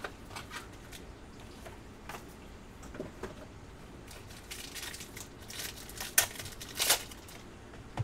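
Hands handling a trading-card box and its foil-wrapped pack: light taps and clicks, then crinkling of the foil wrapper from about halfway through, loudest near the end.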